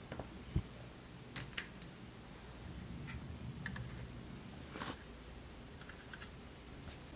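Scattered small clicks and taps of HO-scale model tanks being set down and pressed onto model railway flatcars, with a dull thump about half a second in.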